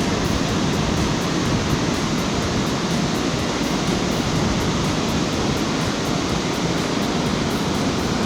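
Steady rush of water pouring over the rapids of the Li Phi waterfall on the Mekong.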